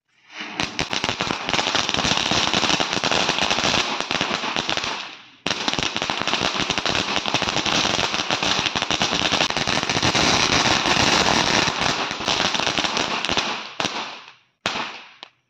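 'Candy Crush' ground firework burning: a dense, steady crackling and fizzing of sparks. It breaks off suddenly about five seconds in and starts again at once, then dies away near the end with one short last burst.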